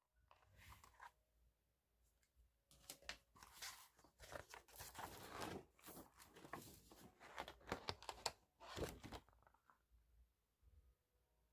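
Spiral notebook being pulled apart by hand: paper tearing and crinkling in a run of quick rips, with a short tear near the start and a longer stretch of ripping that ends about three-quarters of the way through.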